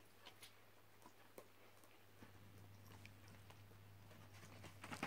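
A dog chewing a piece of custard tart: faint, scattered mouth clicks over a low steady hum.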